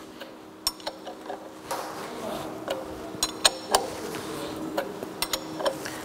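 Irregular metallic clicks and clinks from a hand wrench on the crankshaft pulley bolt of a freshly overhauled engine, as the crankshaft is turned by hand to check that it rotates freely. A faint steady hum runs underneath.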